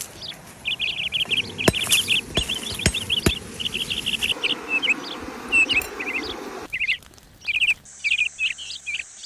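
Small birds chirping in quick repeated trills over a steady outdoor background, with a few sharp clicks in the first few seconds.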